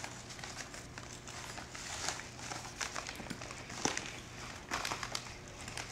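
White wrapping paper crinkling and tearing in irregular bursts as a present is unwrapped by hand.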